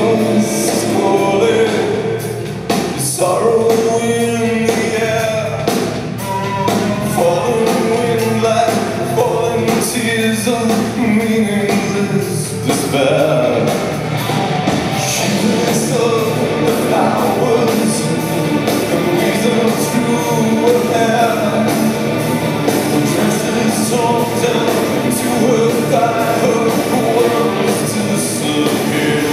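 A live gothic rock band playing: a male lead voice sings over electric guitars, bass guitar and drums.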